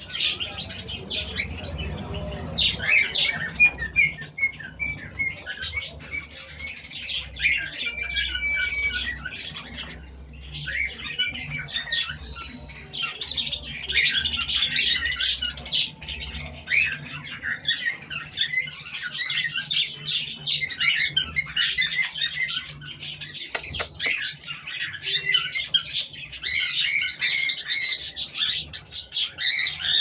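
Dense, unbroken high-pitched chirping and squawking of many small caged birds calling at once, over a faint steady low hum.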